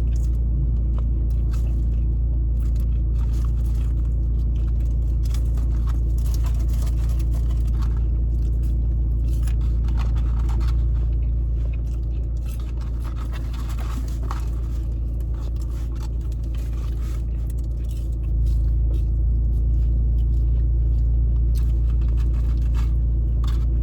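Steady low rumble of an idling car, as heard from inside the cabin, with frequent short scrapes and rustles over it. The rumble drops a little about twelve seconds in and comes back up about six seconds later.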